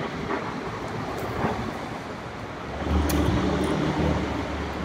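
City street traffic noise. A vehicle's engine rumble comes up about three seconds in.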